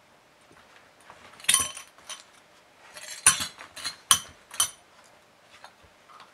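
A red desk service bell struck repeatedly by a cocker spaniel puppy's paw: about six quick dings, each ringing on briefly, starting about a second and a half in.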